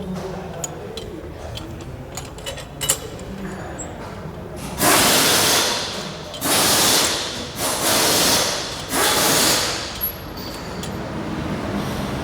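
Floor jack lifting a car's engine: a few light clicks, then four loud hissing bursts of about a second each.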